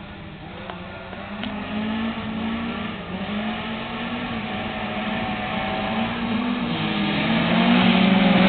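Several rally cars' engines revving hard on a dirt track, their pitch rising and falling with the throttle. They grow steadily louder as the pack approaches.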